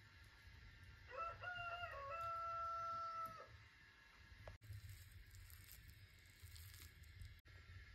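A rooster crowing once, about a second in: a wavering start, then a long held note.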